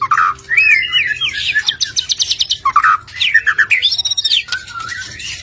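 Several small birds chirping and whistling at once: quick rising and falling whistles and fast trills overlapping, with no pause.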